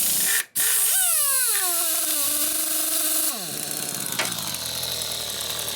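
Pneumatic impact wrench running: it starts abruptly with a burst of air, its motor whine drops in pitch as it loads, then runs steady with a rapid hammering. About three seconds in it winds down lower and quieter.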